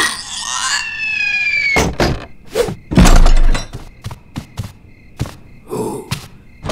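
Cartoon sound effects for a leaping wind-up toy frog: a high whistle-like tone that falls in pitch, then sharp knocks and a heavy wooden thud about three seconds in, followed by a few light knocks.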